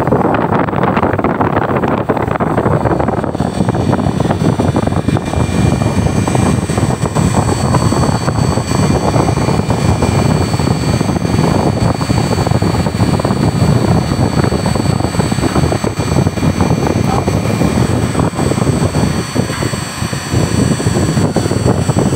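Strong wind buffeting the phone's microphone high up on a crane: a loud, rough, steady rumble.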